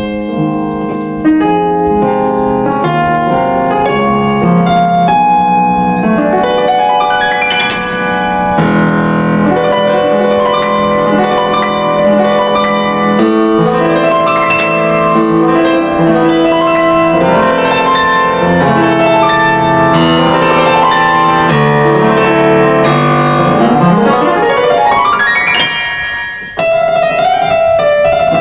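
Pianoteq modelled piano played with a large, reverberant concert-hall ambience: a flowing passage of chords and runs, with a quick upward run about eight seconds in and another, reaching higher, near the end.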